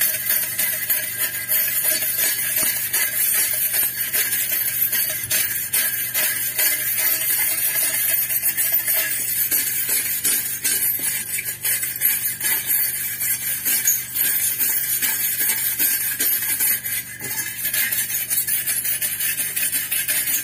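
Hand wire brush scrubbing rust off a steel plate: a continuous fast, hissy metallic scratching of rapid strokes.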